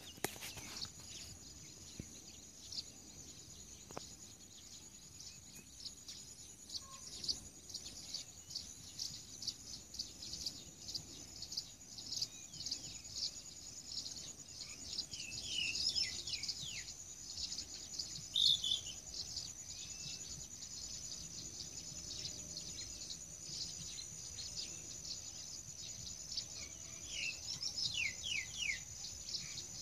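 Steady high-pitched insect trill, with birds chirping over it: a few quick downward-sweeping calls around the middle and again near the end.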